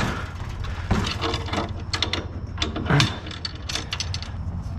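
Ratchet tie-down strap being cranked to tighten a load of scrap: a run of irregular ratchet clicks mixed with metal clanks.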